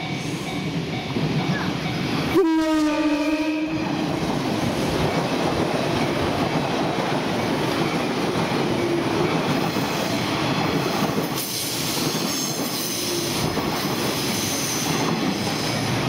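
485 series electric train sounding its typhon air horn once, a blast of about a second and a half a couple of seconds in, then running past with steady wheel and track noise.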